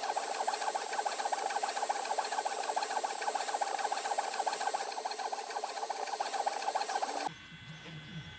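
Easythreed X1 3D printer's stepper motors whirring and chirping through quick, busy print-head moves while printing. Near the end the sound cuts off abruptly and a much quieter hum is left.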